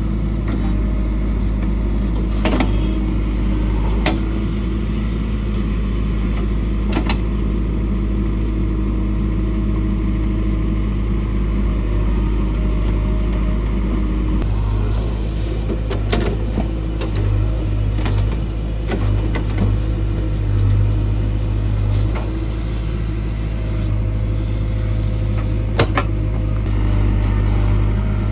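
JCB 3DX backhoe loader's diesel engine running steadily under working load, its hum swelling at times as the hydraulics work, with a few sharp metal clanks from the backhoe.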